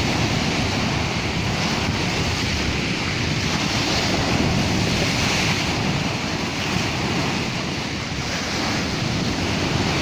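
Small waves breaking and washing up the shore, splashing over driftwood logs, with wind buffeting the microphone.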